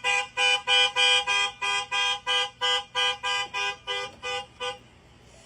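Car horn honking in short rhythmic beeps, about three a second, sounded by a dog thrusting against the steering wheel. The beeps grow weaker and stop near the end.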